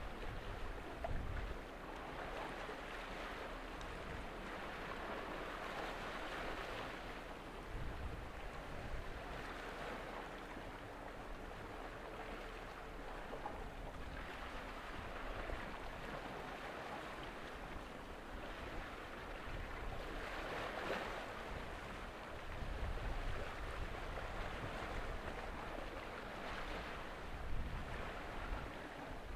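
Water washing and lapping in swells that rise and fade every few seconds, with gusts of wind rumbling on the microphone.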